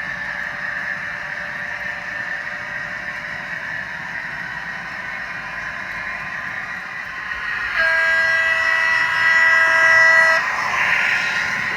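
Sound decoder of a Hornby Class 56 model diesel locomotive playing its engine sound through the model's small onboard speaker, thin with no bass, then a horn sounding for about two and a half seconds near the end.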